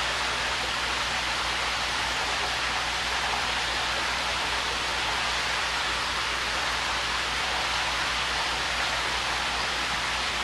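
Water splashing and rushing steadily at the surface of a koi pond, with a low steady hum beneath.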